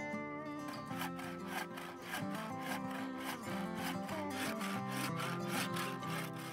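Hand saw cutting through a thin wooden branch in quick back-and-forth strokes, about three a second, starting about a second in and stopping near the end.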